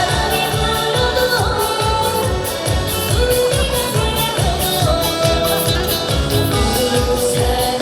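Trot song played loud through a PA: a woman singing over a backing track with a steady beat.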